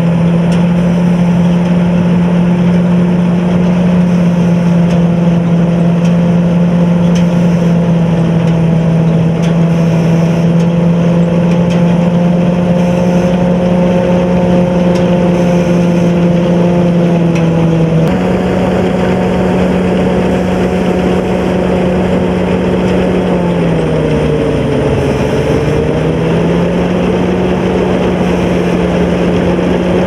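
Sakpattana KM-D No.2 combine harvester with its 220 hp turbo diesel running while it cuts rice: a loud, steady mechanical drone. About three-quarters of the way in, the pitch sags briefly and then recovers.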